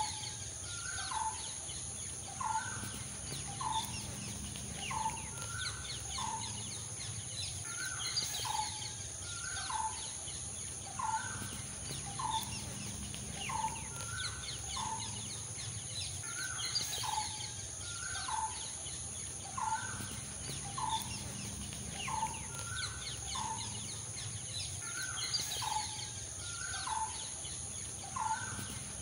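A bird repeating a short two-part call, a higher note then a lower falling one, a little faster than once a second, over a steady high-pitched whine.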